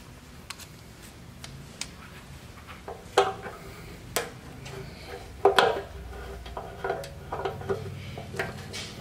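Irregular metallic clinks and clicks of a hand tool working at the petcock and fuel-line fittings on a steel motorcycle fuel tank, with a couple of louder ringing clanks around the middle.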